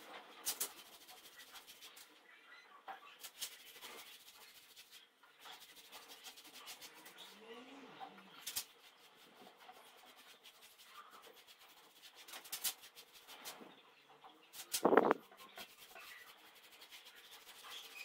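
Paintbrush strokes rubbing on a plastered wall, with scattered light clicks and taps. One short, louder sound comes about fifteen seconds in.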